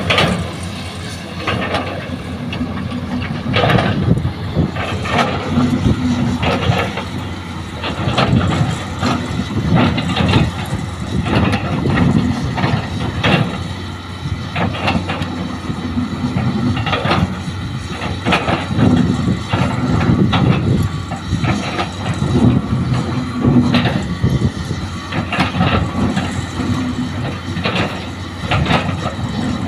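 Heavy diesel engines of a Hitachi hydraulic excavator and dump trucks running steadily. Frequent knocks and clatter come from soil and rock being loaded into a steel dump-truck bed.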